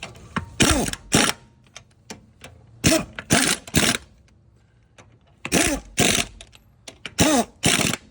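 An impact wrench run on the wheel's lug nuts in about nine short bursts, in twos and threes, each with a motor pitch that falls away as the trigger is let go. The nuts are only being snugged down, ahead of final torquing by hand.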